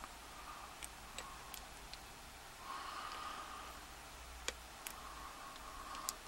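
Lock pick and tension wrench working inside the keyway of a Kasp 19070X padlock during single pin picking: a few sharp small metal ticks as pins are pushed, and two stretches of light scraping.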